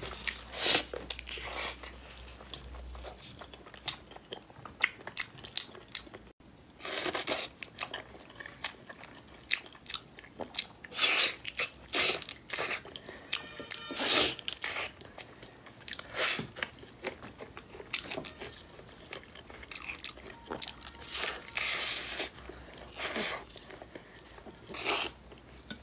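A person biting, tearing and chewing braised pork trotter and knuckle. Loud bites come at irregular intervals over quieter chewing.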